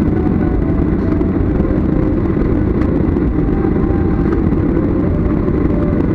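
Jet airliner cabin noise while taxiing after landing: a steady low rumble from the engines at idle, with a few faint steady tones above it.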